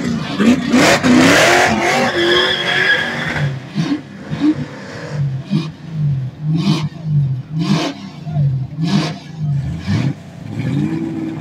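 Dodge drag car's engine at the start line, blipped repeatedly, about once a second, over a lumpy idle. The first few seconds hold a louder, denser stretch of engine and tyre noise.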